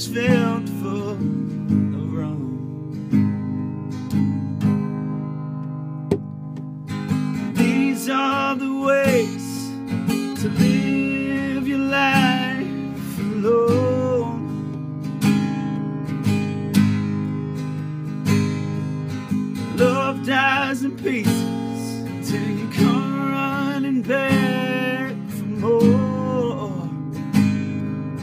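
A man singing a slow song to his own strummed acoustic guitar. The guitar plays alone for the first several seconds, then the voice comes in about seven seconds in and sings in phrases over the chords.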